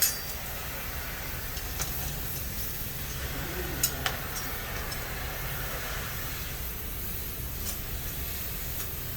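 Steady low background hum and hiss of a workshop, with a few light clicks and taps, a pair of them close together about four seconds in.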